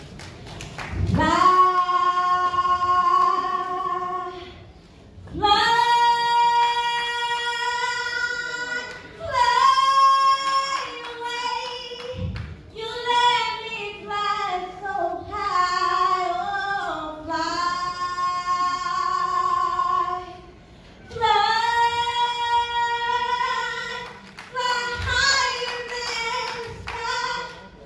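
A woman singing solo a cappella into a hand-held microphone: long held notes and sliding vocal runs with no clear words, broken by short breaths.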